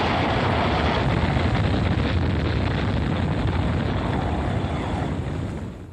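A loud, steady rumbling noise with no clear pitch, fading out near the end.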